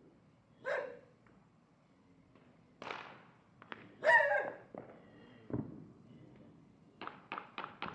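A dog barks twice, then near the end comes a quick run of sharp cracks, about six a second, which someone takes for gunfire rather than fireworks.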